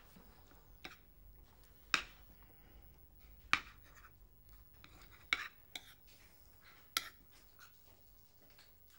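Metal cutlery clinking and scraping against plates as people eat, with a handful of sharp, irregularly spaced clinks.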